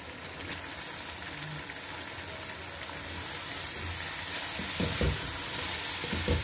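Potatoes and spice masala sizzling in oil in a pot as fresh fenugreek leaves are tipped in and stirred with a wooden spatula; a few stirring knocks against the pot near the end.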